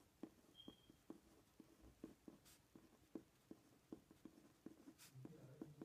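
Uniball Vision Elite rollerball pen writing on paper, faint: short light scratches and taps of the tip on the page as each letter stroke is made.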